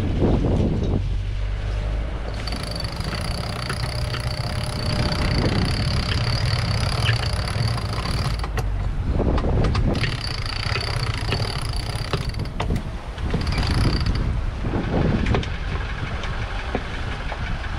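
Sailboat under way at sea: a steady rush of wind and water with creaks and a few sharp knocks from rigging and deck gear, and a high thin whine that comes and goes three times.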